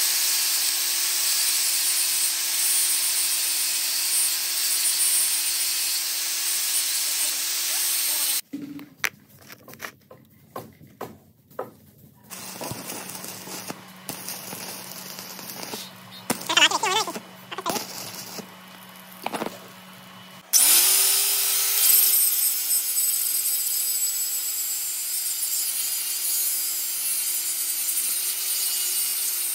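Electric angle grinder running at a steady pitch with the hiss of its disc grinding steel. It stops after about eight seconds; a few knocks follow, then the crackle of arc welding over a low steady hum. About twenty seconds in the grinder spins up again and goes on grinding.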